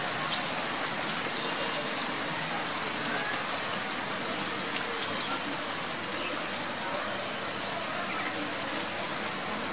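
Steady drizzle falling on garden foliage and surfaces: an even hiss of rain with scattered drop ticks.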